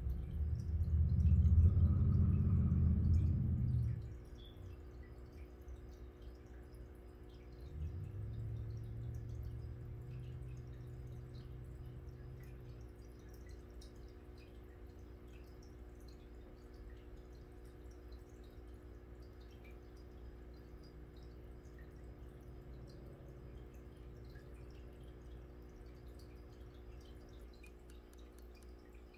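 Aquarium water trickling and dripping as the filter and bubbler run, over a steady hum. A low rumble fills the first four seconds, and a weaker one comes from about eight to twelve seconds in.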